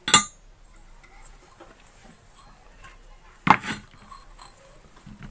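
Two sharp metallic clanks with a short ringing tail, a loud one right at the start and another about three and a half seconds in, with a few light clicks between: metal water pump parts being handled and set down on a workbench.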